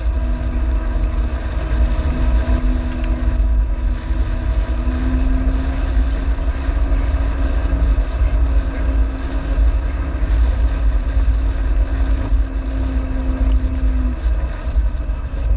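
Vehicle engine running steadily while driving over a rough dirt track, a constant drone over a heavy low rumble. The drone's tone fades out near the end.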